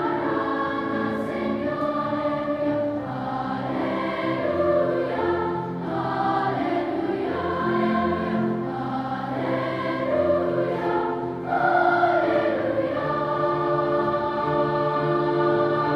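Large children's choir singing together, with long held notes in the last few seconds.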